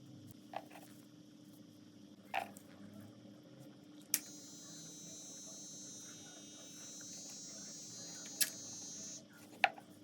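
Small restored DC motor spinning with a steady high whine; it starts with a click about four seconds in and cuts off about a second before the end. A few sharp clicks come before it starts and as it stops.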